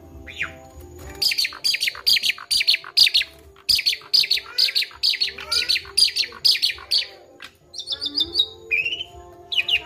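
Asian pied starling (jalak suren) calling: a fast run of loud, sharp repeated notes, about three or four a second, then a short rapid trill and a couple of separate whistled notes near the end.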